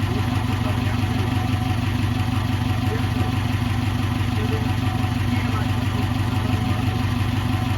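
Subaru Brumby's flat-four engine idling steadily and evenly. Its exhaust runs quietly through a freshly repaired rear muffler, with no exhaust leaks.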